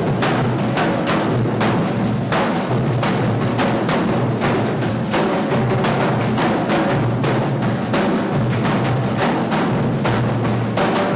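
A percussion ensemble drumming a continuous rhythm, with dense, evenly repeated drum strokes and no break.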